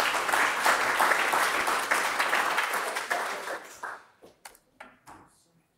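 Audience applause that fades out about four seconds in, with a few last scattered claps.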